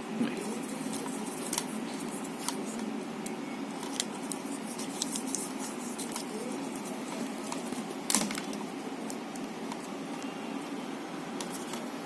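Scattered small clicks and rustles of hands insulating and handling wiring, with one sharper click about eight seconds in, over a steady low hum.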